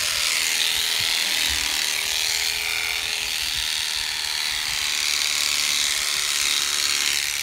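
Electric shearing clippers running steadily: a constant motor buzz and hiss with no break.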